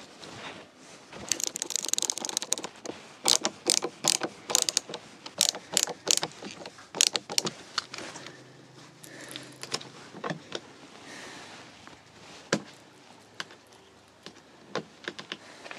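Hand screwdriver driving a small screw into a plastic curtain popper stud, with a run of sharp, irregular clicks over the first half. Later only a few single clicks and soft rustling as the blackout curtain is handled at its press stud.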